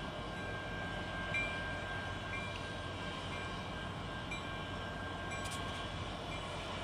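A westbound freight train of autorack cars rolling past, a steady rumble and hiss. Over it runs a thin high ringing tone that fades near the end, with faint short rings about once a second.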